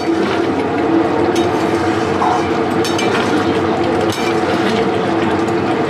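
Metal ladle stirring a thick potato-and-pea curry in a metal kadai, scraping and clinking against the pan a few times, over a steady hum.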